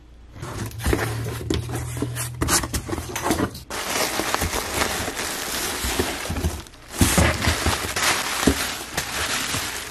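Bubble wrap and plastic packaging crinkling and crackling as hands pull it about inside a cardboard box, with many small clicks and a short lull just before 7 seconds.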